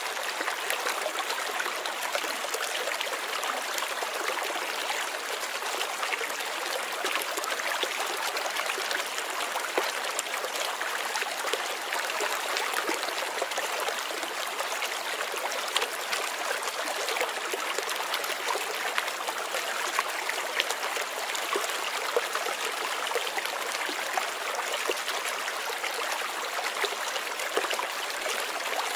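Water running steadily over rocks in a stream, a continuous splashing trickle with small bubbling crackles.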